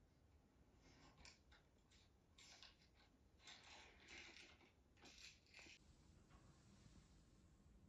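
Near silence: room tone with a few faint, brief scratchy noises in the first six seconds.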